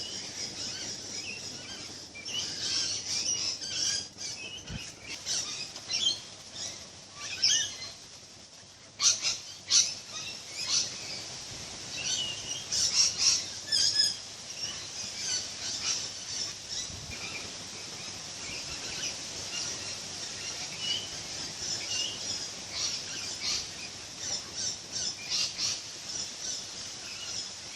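Small birds chirping in the background: many short, high calls, thickest and loudest through the middle stretch.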